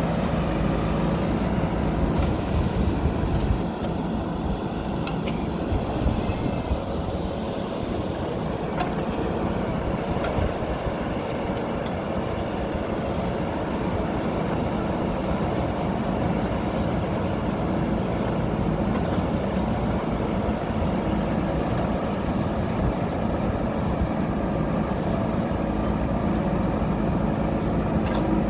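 JCB 3DX backhoe loader's diesel engine running steadily under working load, with a couple of sharp metallic clanks a few seconds in.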